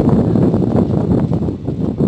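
Loud low rumbling noise with an irregular, gusty flutter, like wind buffeting the microphone.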